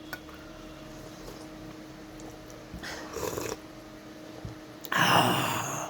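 Mouth noises of a man eating hot chicken momos: a short sound about three seconds in, then a louder breathy rushing noise for about the last second.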